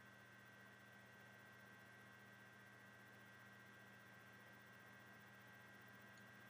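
Near silence: a faint steady electrical hum and hiss in the recording.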